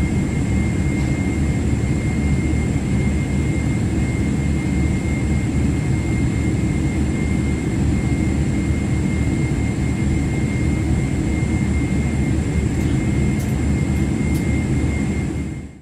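Boeing 777-300ER's GE90-115B turbofan running at idle as the aircraft taxis, heard from inside the cabin beside the engine: a steady low rumble with a thin high whine. The sound fades out near the end.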